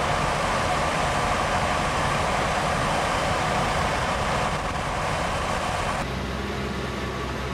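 Heavy diesel machinery, a wheel loader and a truck, running steadily at work. About six seconds in the sound shifts, with less hiss and a steadier low engine note.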